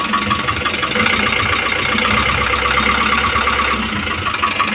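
Isuzu 4BC2 four-cylinder diesel engine idling with a slight knock, an even, rapid tapping over the steady engine sound.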